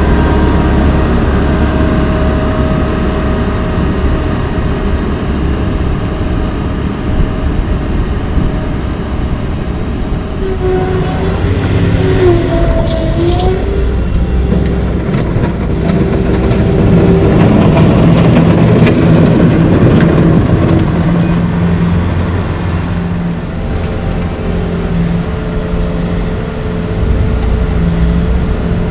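Diesel engines of road-paving machines, a pneumatic-tyred roller and a skid-steer loader, running. The drone is steady at first, then from about ten seconds in an engine rises and falls in pitch as it works, with a couple of sharp clicks.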